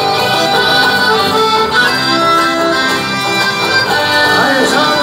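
A live folk band playing, with accordions carrying the melody over strummed guitar and bass guitar; loud and continuous.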